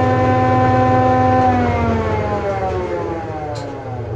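A woodworking machine's motor and cutterhead spinning down after being switched off: a steady whine for about a second and a half, then a pitch falling smoothly as it coasts to a stop.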